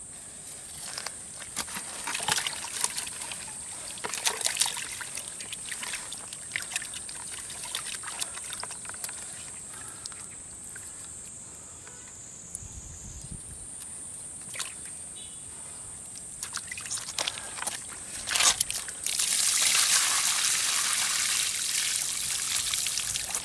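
Water trickling and splashing as a ground-cage fish trap net is handled and opened, with scattered wet clicks and splashes. About nineteen seconds in comes a louder rush of water for a few seconds as the trap is emptied. A steady high insect buzz carries on behind it.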